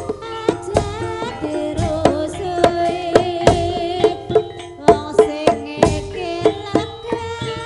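Javanese gamelan accompaniment for an ebeg horse dance: bonang pot-gongs and saron metallophones ring out struck notes over quick, sharp hand-drum strokes. A woman's singing voice comes and goes over the ensemble.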